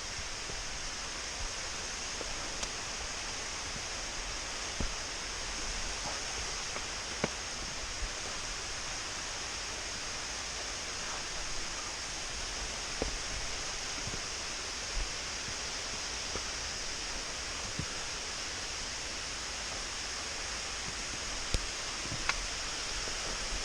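Lye Brook Falls, a waterfall, rushing steadily, with a few light clicks scattered through it.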